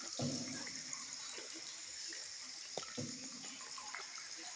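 Water swishing under a paddled tour boat, two low paddle strokes about three seconds apart, over a steady high hiss.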